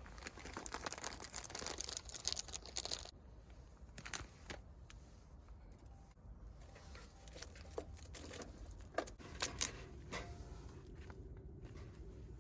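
Rustling and crinkling handling noises: a dense patch of crackling rustle for about three seconds, then scattered clicks and small knocks, with a few louder clicks near the end.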